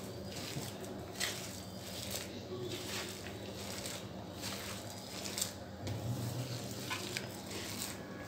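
A hand squishing and kneading thick ground-dal batter with chopped onions in a steel bowl: irregular soft squelches and scrapes.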